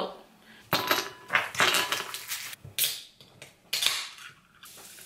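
Ice cubes clattering into a ribbed glass coupe, several sharp clinks one after another. Near the end cola is poured from a can over the ice, with a soft, steady fizzing hiss.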